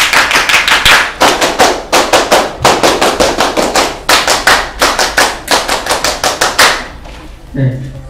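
A group of people clapping hands together in unison in a fast, patterned rhythm of grouped claps, stopping about seven seconds in.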